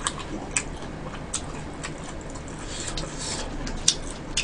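Faint, scattered clicks and small smacks of someone eating glass noodles with chopsticks, coming about once a second over a low steady background.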